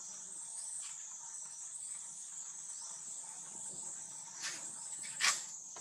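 Steady high-pitched drone of insects, with two sharp clicks near the end, the second the louder.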